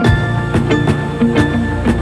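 Background music with a steady beat, about two drum strokes a second, over pitched notes and a bass line.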